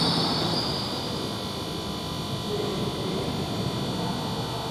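Steady room tone of a large indoor sports hall: a low hum with a faint, steady high-pitched whine.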